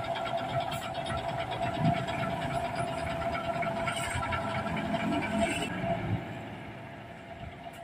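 Diesel engine of a Daewoo BH117H coach running as the bus pulls away, with a steady whine over the engine note. The sound fades away after about six seconds as the bus drives off.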